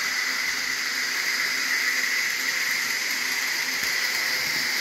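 HO-scale model diesel locomotive running steadily around a plastic-roadbed track, its electric motor, gears and wheels making an even whirring hiss.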